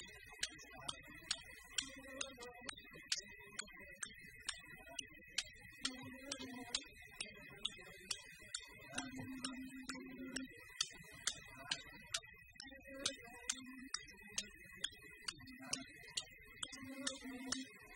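Faint fiddle tune in short held notes, with sharp clicks keeping an even beat about two and a half times a second and a steady high hum underneath.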